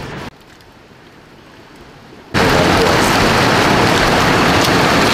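Loud, steady rush of river water close to the microphone, cutting in suddenly a little over two seconds in after a brief burst of noise.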